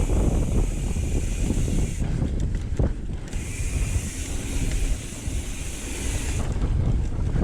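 Wind rushing over the microphone as a mountain bike rolls fast over a dirt trail, its tyres and frame rumbling and knocking over the ground, easing a little in the middle.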